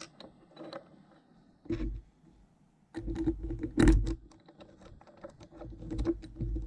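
Small metal headlight bracket parts being handled and slotted together on a workbench: a series of light clicks, taps and scrapes, in clusters with short quiet gaps between.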